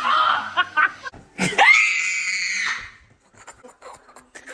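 A startled scream about a second and a half in, one high cry held for about a second and a half before it breaks off.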